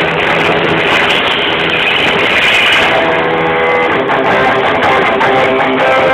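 Live rock band playing loud, with strummed electric guitars. The recording is made close to the stage, so the sound is overloaded and blown out. Clearer held guitar notes come through from about halfway.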